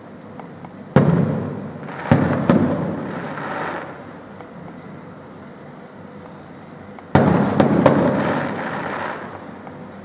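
Aerial firework shells bursting: a sharp bang about a second in, two more a second later, then a quick group of three near seven seconds. Each group trails off in a rumbling echo over a second or two.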